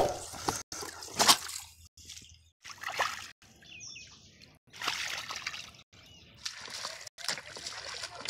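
Shallow muddy water splashing and sloshing as catfish thrash and are handled by hand and a person wades, in short separate bursts broken by abrupt silences.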